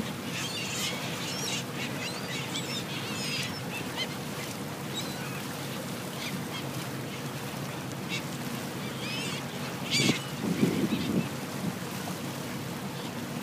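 A flock of gulls calling: many short, overlapping cries, thickest in the first few seconds and again about ten seconds in, over a steady low hum.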